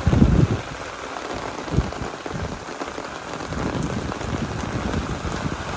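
Rain pattering steadily on a surface, with a louder thump right at the start and another about two seconds in.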